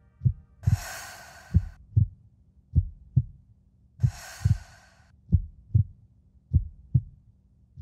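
Heartbeat sound effect: slow, steady double thumps, one lub-dub about every second and a quarter. Two long breath-like hisses come over it, the first about a second in and the second about four seconds in.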